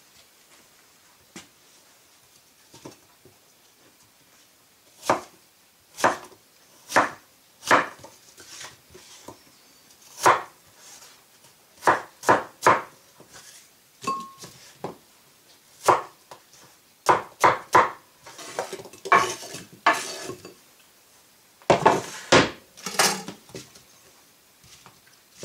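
A chef's knife chopping apple on a wooden cutting board: irregular knocks of the blade striking the board, about one a second, then coming faster. Near the end there is a louder clatter as the apple pieces go into a ceramic bowl.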